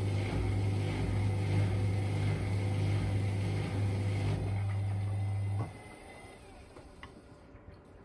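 Indesit IWDD7143 washer dryer tumble drying: the drum motor and drying fan run with a loud steady hum and rush of air, then stop abruptly about five and a half seconds in. A few faint clicks follow.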